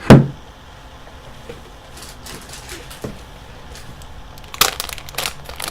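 A single loud thump right at the start, then quiet with a few faint clicks, then a short cluster of clicks and rustles near the end: hand-handling noise as objects are picked up and moved.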